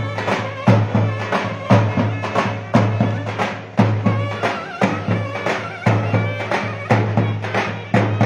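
Mehter-style wedding music: zurnas playing a shrill, reedy melody over a heavy davul stroke about once a second.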